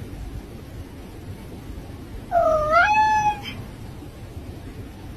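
A cat meowing once, a single drawn-out meow of about a second starting a little over two seconds in, its pitch dipping and then rising.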